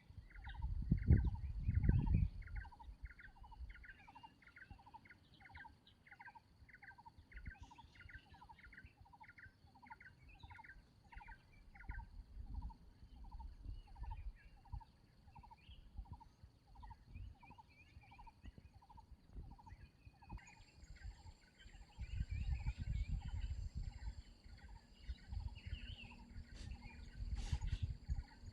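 A bird calling over and over at a steady pace of about two calls a second, with a faint steady high tone behind it. Gusts of wind rumble loudly in the first couple of seconds and again near the end.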